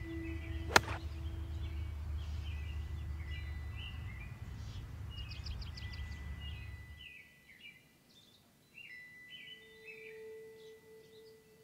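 A golf wedge strikes the ball once about a second in, a single sharp click and the loudest sound here. Birds chirp throughout, over wind rumble on the microphone that stops abruptly about seven seconds in.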